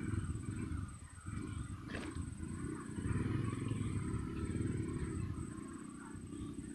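A rough low rumbling noise, with a high, thin insect trill pulsing steadily above it. The trill falls silent briefly a few times.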